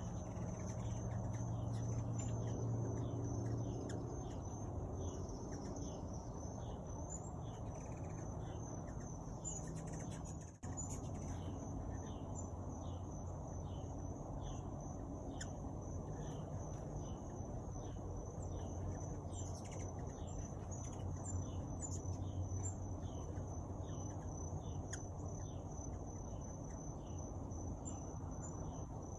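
Insects calling: a steady high-pitched drone with a short chirp repeating evenly, about three chirps every two seconds, over a low steady hum. The sound drops out for a moment about ten seconds in.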